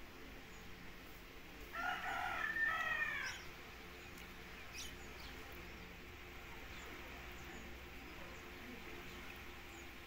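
A rooster crowing once, about two seconds in, the crow lasting just under two seconds.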